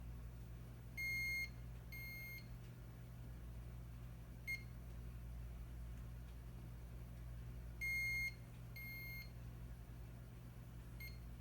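Electronic beeps from a heating pad's control panel as its temperature is set: about six beeps at one high pitch, two of them longer, over a steady low hum.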